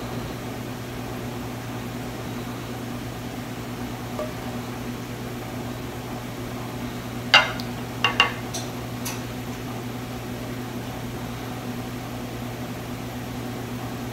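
A slotted spatula knocking against a plate and skillet while eggs are served: one sharp clink about seven seconds in, then a quick pair just after and two faint ticks. A steady low hum runs underneath.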